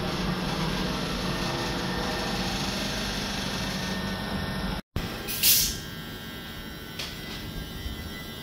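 Class 387 electric multiple unit running slowly past along the platform: a steady rumble of wheels and running gear with a constant hum. About five seconds in the sound cuts out for an instant, then comes a short, loud hiss of air, and a single click follows a little later.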